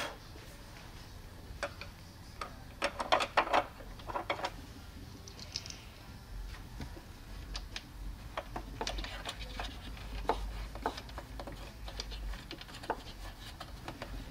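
Light clicking and clattering of hands working speaker wires and screws into a metal terminal block inside a wooden subwoofer enclosure, with a short flurry of louder clicks about three seconds in.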